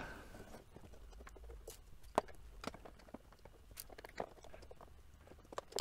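Faint, scattered small clicks and ticks of a precision Torx T6 screwdriver working small screws in a hard drive's metal base, with one sharper click about two seconds in.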